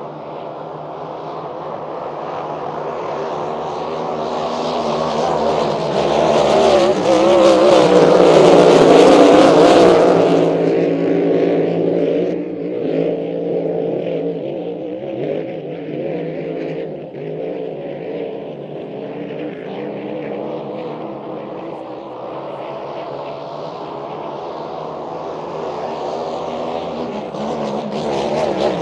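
Racing hydroplane engines running flat out as the boats race on the water, the wavering engine note swelling to a peak about a third of the way in. It drops off suddenly to a steadier, duller drone and builds again near the end.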